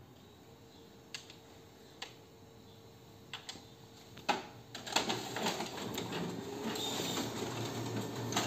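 Ricoh MP5002 office copier starting a print run: a few separate clicks, then about five seconds in the paper feed and drive start running with rapid clicking. It is a test batch run to see whether the SC360 error code comes back.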